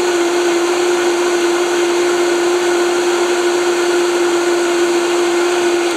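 High-speed blender running steadily at full speed, pureeing a roasted sweet potato and coconut milk soup: a constant motor whine over a rushing sound.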